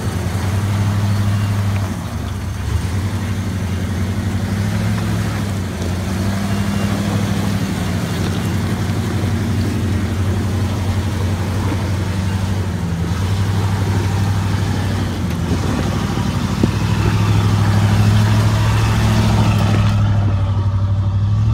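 Ford F-350 pickup's engine running under load as the truck crawls up a slickrock ledge, its revs rising and falling, louder near the end.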